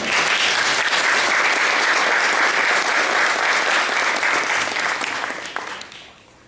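Audience applauding, starting all at once and fading out near the end.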